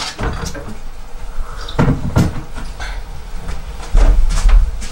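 Kitchen clatter: knocks and rattles of things being moved about in an open refrigerator and cupboard, strongest about two seconds in. Heavy low thuds come near the end.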